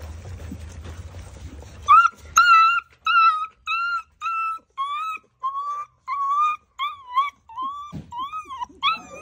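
Pit bull puppy whining over and over: a run of short, high-pitched whines, about one or two a second, some rising and falling. It starts about two seconds in, after a low hum.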